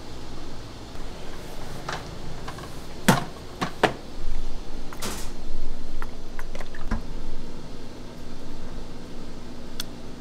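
Kitchen clatter: several sharp knocks and clinks of kitchenware, the loudest a few seconds in, over the steady hum of a kitchen fan.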